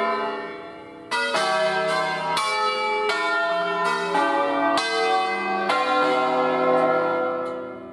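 Bronze church bells of an eight-bell ring in C (Cavadini, 1925) rung by hand, swinging full circle on their wheels: overlapping strikes in a melodic sequence with long ringing overtones. A short lull about a second in, then strikes come quickly one after another before the ringing dies away near the end.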